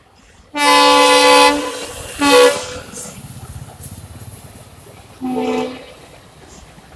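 Indian Railways locomotive horn sounding three times: one long blast about half a second in, a short toot about two seconds in, and another short toot about five seconds in, with the passing train's running rumble in between.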